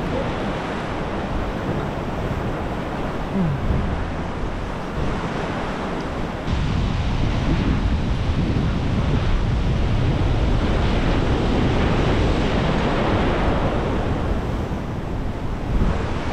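Rough inlet surf breaking and churning against the pier pilings, mixed with wind buffeting the microphone. The rushing noise jumps louder and deeper about six and a half seconds in and stays there.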